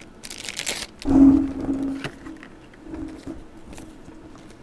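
Card-break packaging handling: a brief crinkle of plastic, then a thud on the table followed by a low steady buzzing hum lasting about a second, which returns more faintly a couple of seconds later.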